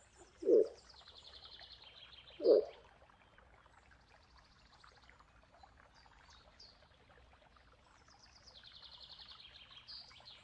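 Moose giving two short, low grunts about two seconds apart, each sliding downward in pitch. A bird trills faintly in the background, twice.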